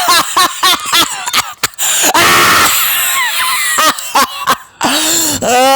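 A person laughing loudly and hard: quick short bursts of laughter, a hoarse, noisy stretch about two seconds in, then longer drawn-out laughs near the end.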